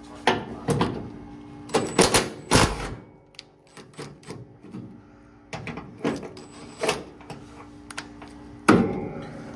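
Socket wrench loosening the hood hinge bolts on a 1969 Chevy C10: irregular runs of ratchet clicks and metal clinks of socket on bolt, over a steady low hum.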